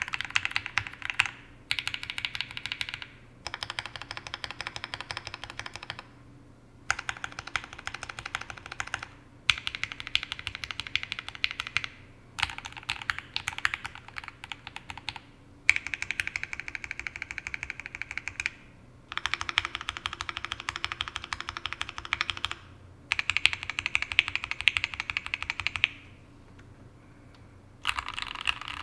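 Sneakbox AVA Alice-layout custom mechanical keyboard being typed on quickly in runs of a few seconds, with short pauses between them. It is fitted with Tangerine v2 linear switches, an aluminium plate and GMK keycaps, and dampened with a PE sheet and shelf liner.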